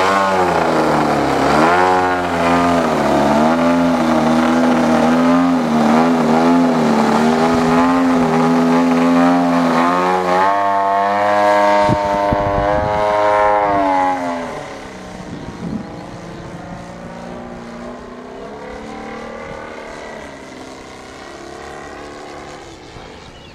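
Desert Aircraft DA-60 single-cylinder two-stroke petrol engine of a radio-controlled Yak 55M aerobatic plane, running with the throttle rising and falling as the plane hangs on its propeller. About 14 seconds in it turns much fainter as the plane flies away high.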